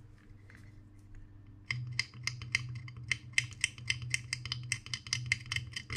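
A small pointed metal tool scraping at a circuit board in quick short strokes, about six a second, starting a little under two seconds in. The scraping opens up a new solder pad for a capacitor whose original pad was blown.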